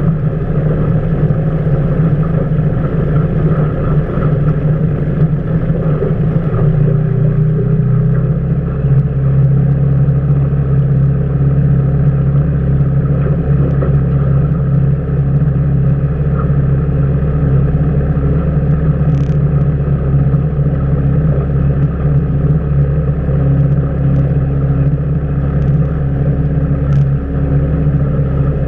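Outboard motor on an aluminium fishing boat running steadily. About seven or eight seconds in it is throttled down to a lower, steady pitch.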